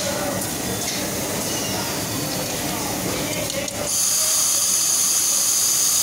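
Steady hum of factory machinery on a compressor assembly line, with a loud high hiss of compressed air from the pneumatic equipment setting in about four seconds in.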